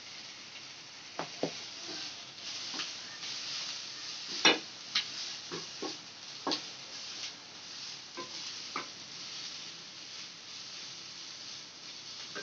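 Ponnaganti greens sizzling in oil while a wooden spatula stirs them, knocking and scraping against the pan. There are about nine sharp knocks, the loudest about four and a half seconds in.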